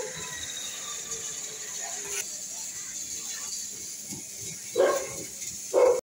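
A dog barks twice near the end, two short sharp barks about a second apart, over a steady high hiss.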